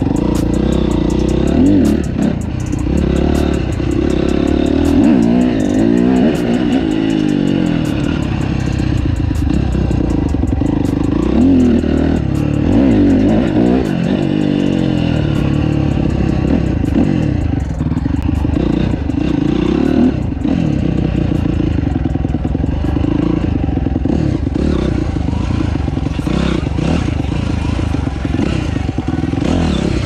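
Dirt bike engine revving up and down as it is ridden over rough ground, the pitch rising and falling repeatedly, with many small knocks and rattles throughout.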